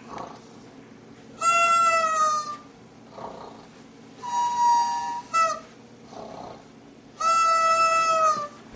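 Meowing: three long, drawn-out calls about three seconds apart, each held on a steady high pitch that sags slightly at the end.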